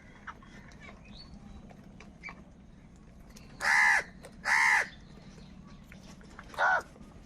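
Crow cawing: three harsh caws, two in quick succession about four seconds in and a shorter one near the end.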